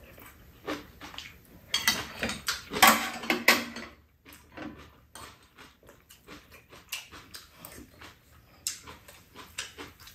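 Eating at a table: spoons and chopsticks tapping china bowls, with chewing and slurping mouth sounds. A cluster of louder noises comes about two to three and a half seconds in, with scattered clicks after it.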